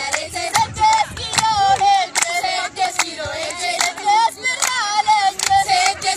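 A group of girls singing a song together while clapping hands in a steady beat, about two to three claps a second.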